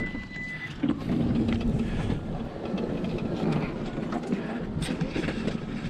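A short steady beep at the start, then an electric garage door opener running with a steady mechanical rumble as the door opens.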